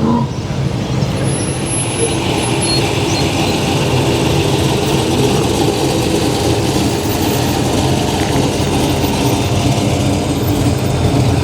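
Car engine running steadily at low speed amid slow-moving traffic, a continuous low drone with the noise of other vehicles around it.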